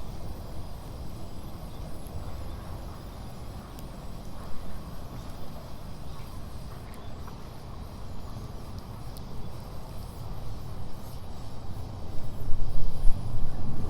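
Wood fire burning in a Coleman Fire Disk fire pit, with a few sharp crackles over a steady low rumble that grows louder near the end.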